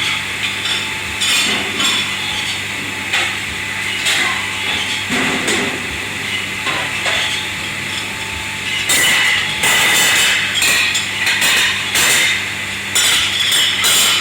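Dishes, pots and metal kitchenware clattering and knocking irregularly as they are handled and stacked at a kitchen dish station, over a steady machine hum.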